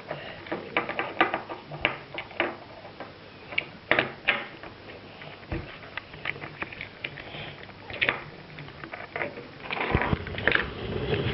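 Small plastic toy pieces being handled and knocked together, an irregular run of light clicks and taps, with a couple of sharper knocks.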